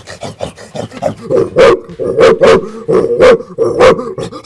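A man imitating the deep barks of a big St. Bernard dog with his voice, into a plastic bucket held to his mouth: a run of woofs, with five loud ones in the second half.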